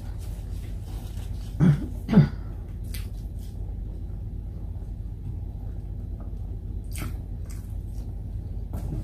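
A person clearing her throat twice in quick succession, about two seconds in, over a steady low hum. Later come a few faint clicks as food is picked up with the fingers off a plastic-covered table.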